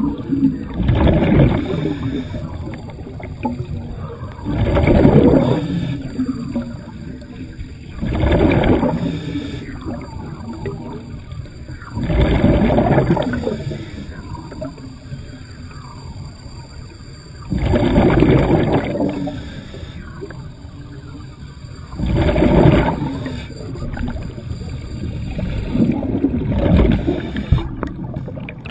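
Scuba diver's regulator heard underwater, with exhaled bubbles rumbling out in bursts every three to five seconds and quieter stretches in between.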